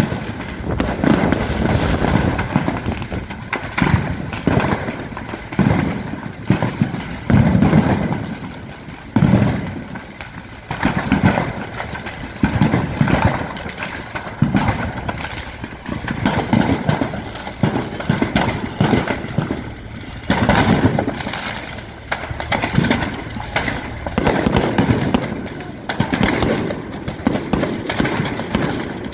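Fireworks set off by a large fire, going off continuously: an irregular stream of bangs, pops and crackles with deeper thumps.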